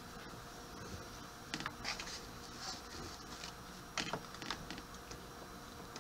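Faint handling of raw chicken pieces lifted from a foam meat tray and laid into a baking pan: short clicks and rustles in two clusters, about a second and a half in and again about four seconds in.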